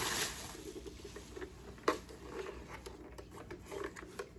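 Hands handling plastic blaster parts and packaging: light rustling and scraping, with one sharp click about two seconds in.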